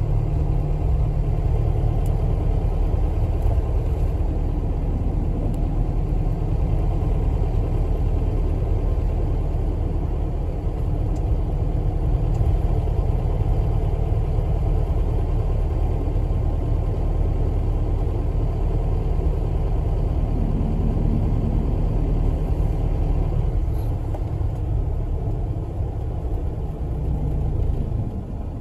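A bus's engine and road noise heard from inside the cabin: a steady low rumble that grows a little quieter near the end.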